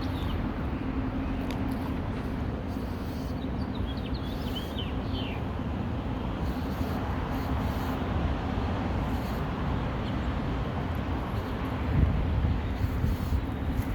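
Bumblebees buzzing steadily while foraging on rose flowers, a constant low hum over a rumbling background. A few faint bird chirps come about four seconds in, and the low rumble swells louder near the end.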